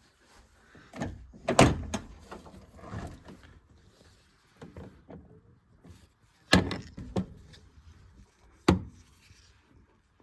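Knocks, clunks and rattles of a Vaillant ecoTEC boiler's casing being handled, as when its front cover is taken off. Three sharp knocks stand out, about a second and a half, six and a half and eight and a half seconds in, with scraping and rattling between them.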